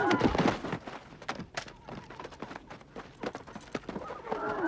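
Horses' hooves clopping and shuffling in irregular knocks, following a man's yell at the start. A further shout comes near the end.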